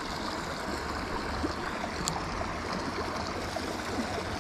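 Small creek running steadily over a rocky riffle, with one brief high tick about two seconds in.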